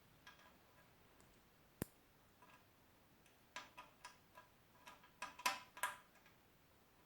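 Faint, light clicks and taps with a slight ring: one sharp click a little under two seconds in, then a quick cluster of about a dozen between three and a half and six seconds.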